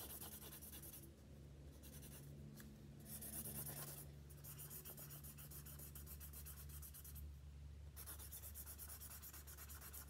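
Felt-tip marker scribbling on paper, colouring in an area in quick back-and-forth strokes, with short pauses between stretches of scribbling.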